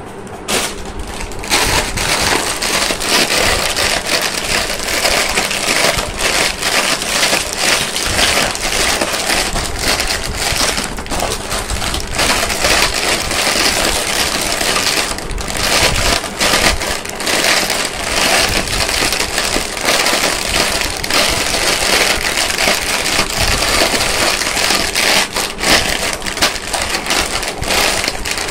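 Crinkly foil-lined candy wrapper crackling as hands tear it open and peel it off a chocolate wafer roll, a dense run of sharp little crackles that starts about a second and a half in.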